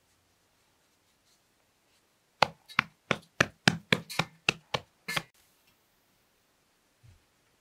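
A hand striking a large ball of bread dough in an aluminium basin: about ten quick slapping thumps over some three seconds.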